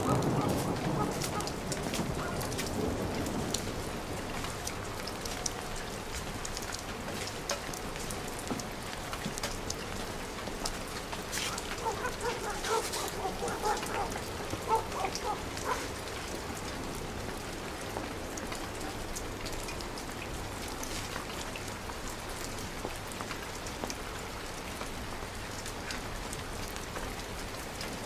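Steady rain falling, with many individual drops ticking, as a low rumble of thunder dies away over the first couple of seconds. A few brief pitched sounds come through near the middle.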